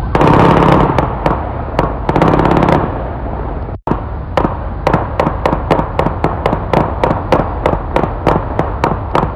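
Gunshot-detection (ShotSpotter) sensor recording of a gunfight: two rapid bursts of fully automatic fire from a modified weapon, then a long string of separate shots at about four a second. The recording drops out briefly between the bursts and the shots.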